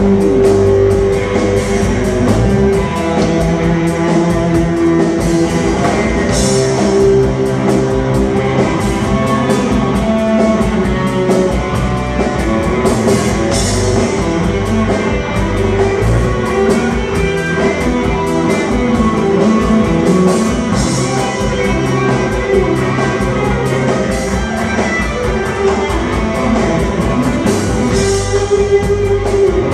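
Live band playing an instrumental break of a Lao lamvong dance song, with no singing: held melody notes over guitar and a drum kit keeping a steady beat.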